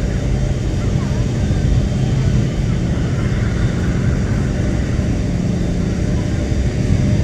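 Boeing 737-800's CFM56-7B turbofan engines at takeoff thrust as the airliner climbs out after liftoff: a steady, low-pitched jet roar.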